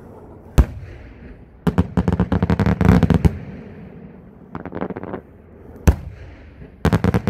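Maltese-style aerial firework shells bursting overhead. A single sharp bang comes about half a second in, then a rapid run of cracking reports around two to three seconds. A smaller crackle follows near five seconds, another single bang near six, and a fresh rapid salvo starts just before the end.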